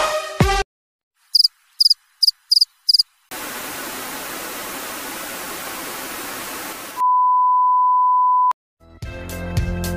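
Edited intro sound effects: six short high chirps, then about four seconds of static hiss, then a steady 1 kHz test-pattern bleep that cuts off with a click. Music starts near the end.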